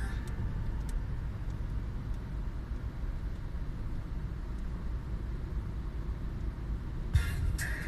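Steady low rumble of a road vehicle on the move: traffic and road noise with no distinct engine note.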